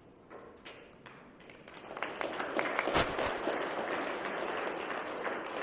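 A congregation applauding: a few scattered claps at first, swelling to full applause about two seconds in, with one louder thump near the middle.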